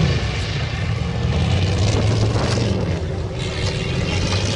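Car engines running on the beach course, a steady low drone heard at a distance over a noisy background.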